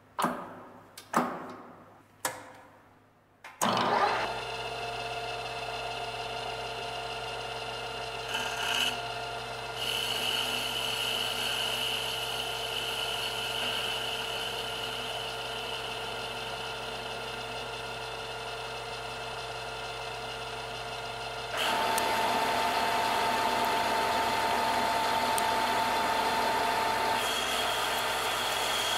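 Four sharp knocks, each ringing briefly, then a metal lathe's spindle starts and runs steadily. A carbide roughing insert then cuts a metal round bar, first facing the end and then turning it down to a shoulder, with a steady high whine under the machine's running. The cut gets louder about 22 seconds in.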